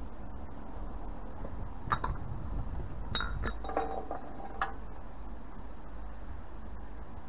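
Light metallic clinks of a small metal paint tin and brush as the frame of a sack barrow is painted. There are a handful of sharp taps about two, three and four and a half seconds in, and one leaves a brief ring. A steady low rumble runs underneath.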